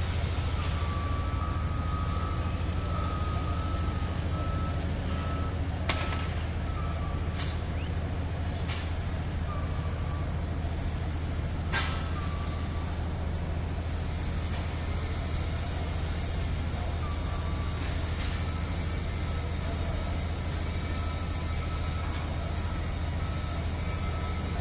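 Steady low drone of heavy construction machinery, with a thin high whine running under it and on-and-off high beeping tones. A few sharp metallic bangs come through, the loudest about twelve seconds in.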